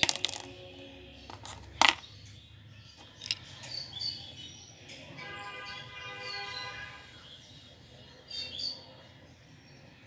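Sharp clicks of small plastic toys being handled in a plastic basket, two loud ones at the start and about two seconds in, with short high chirps scattered through and steady background tones.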